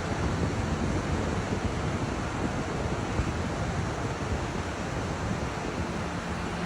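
Steady outdoor rushing noise, with no speech or music; a faint low hum joins near the end.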